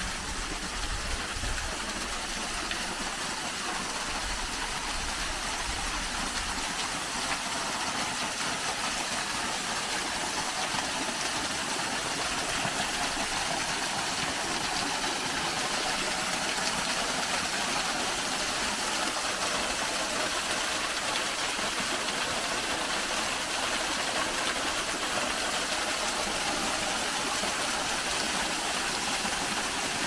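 Small waterfall rushing steadily. A little wind rumble on the microphone in the first second or so.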